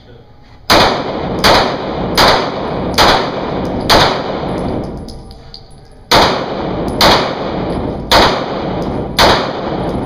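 Handgun fired in two quick strings inside a concrete-walled indoor range. Five shots come about three-quarters of a second apart, then a pause of about two seconds, then four more. Each shot is followed by a ringing echo off the walls.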